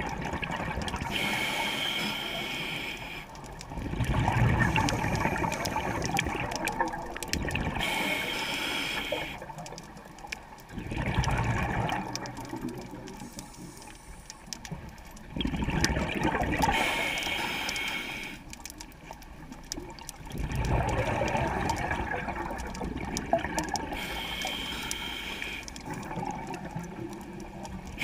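Scuba diver breathing through a regulator underwater: a hiss of inhaled air followed by a low gurgle of exhaled bubbles. The cycle repeats about every eight seconds, four breaths in all.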